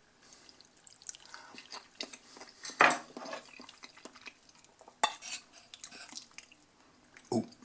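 Metal fork clinking and scraping against a plate while scooping up creamy macaroni, with a few sharp clinks, the loudest about three seconds in and another about five seconds in.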